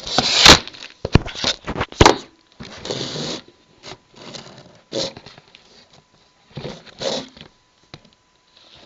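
Close handling noises: irregular bursts of rustling and scraping with several sharp clicks, loudest in the first couple of seconds.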